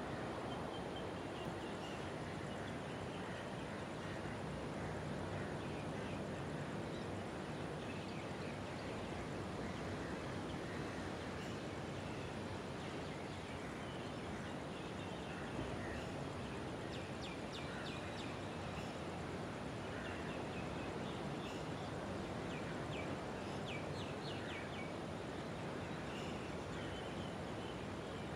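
Night ambience: a steady even hiss with faint high chirping calls that come in quick runs of several strokes, most often past the middle.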